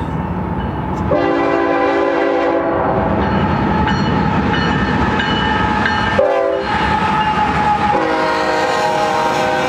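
BNSF freight train's diesel locomotives passing close by, engines running and wheels rumbling on the rails, sounding a multi-note air horn: a long blast about a second in, a short one about six seconds in, and another long blast starting near the end. With the long blast just before, this is the long-long-short-long grade-crossing signal.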